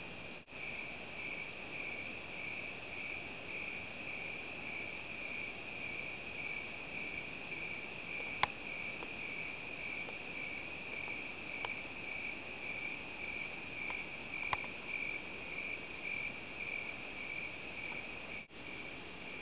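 Crickets chirping in a steady, pulsing chorus, with a few sharp clicks over it, the loudest about eight seconds in. The sound cuts out briefly near the start and again near the end.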